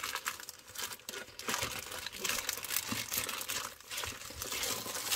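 A clear plastic sleeve crinkling and rustling irregularly as hands open it and slide out a rolled canvas. It gets louder near the end.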